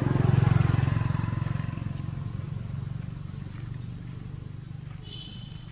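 A passing motor vehicle's engine hum, loudest about half a second in and then slowly fading away.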